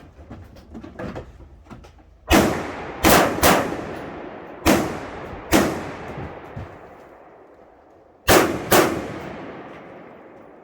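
Rifle shots during a rifle match stage: seven shots in uneven groups, two of them in quick pairs, each with a long echoing tail. A few faint knocks come before the first shot.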